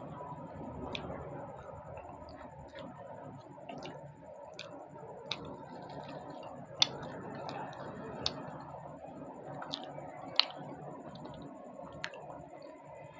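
Someone eating luchi and cholar dal by hand: scattered soft mouth clicks and smacks of chewing, with two sharper clicks, over a steady hiss of room noise.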